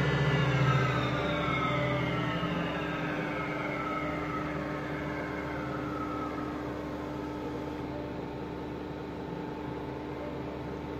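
Alzmetall CNC pillar drill running under power. Its whine falls in pitch over the first six seconds or so as the spindle slows, then settles into a steady mechanical hum.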